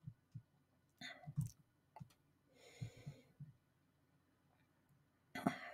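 Faint, scattered small mouth clicks and lip smacks, with a soft breath out about three seconds in and a few more clicks near the end.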